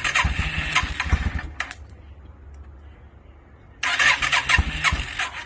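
2002 Yamaha V-Star 650's air-cooled V-twin being cranked on its electric starter in two bursts of about a second and a half each, the first right at the start and the second near the end, with irregular low thumps from the engine turning over.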